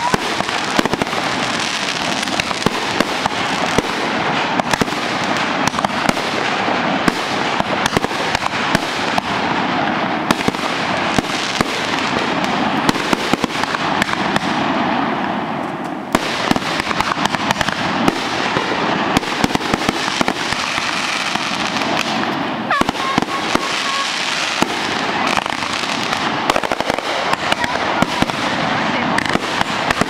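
Aerial fireworks bursting in a dense barrage: rapid, continuous crackling pops and bangs, easing off briefly about halfway through before picking up again.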